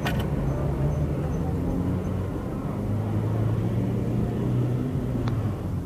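A motor vehicle's engine running close by amid street traffic, a low steady rumble. A click comes right at the start and another about five seconds in.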